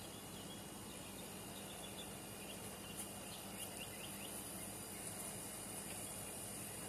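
Faint outdoor ambience: a steady high buzz of insects with a few short bird chirps, over a low steady hum.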